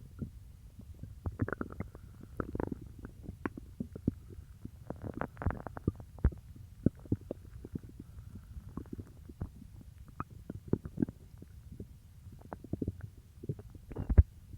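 A person's stomach and intestines gurgling while digesting peanut butter. It is an irregular run of squelches, pops and short rumbles, busier about one and a half to three seconds in and again around five seconds, with one sharp loud pop near the end.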